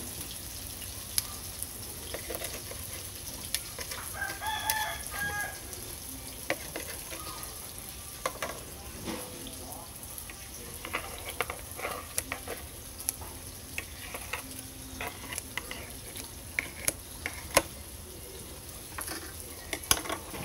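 Metal knife, spoon and scissors clicking and scraping against a ceramic plate as fried tofu-and-soy 'meat' is cut up, in short sharp clinks scattered throughout. A rooster crows once in the background about four seconds in.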